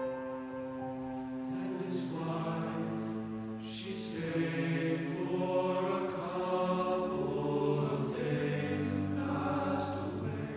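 Men's choir singing slow, sustained chords with piano accompaniment, swelling louder in the middle.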